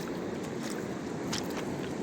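Fast-flowing mountain river rushing steadily, with small splashes crackling over the flow.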